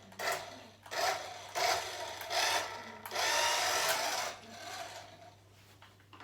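Small electric motor of a toy remote-control car whirring in about five short bursts as it is driven, the longest about a second long.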